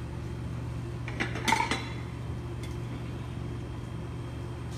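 A few light clinks of plates and cutlery, about a second and a half in, over a steady low hum.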